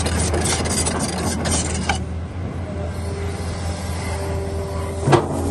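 Hitachi excavator's diesel engine running with a steady low hum. A burst of metallic rattling and clicking fills the first two seconds, and a single sharp clank comes near the end.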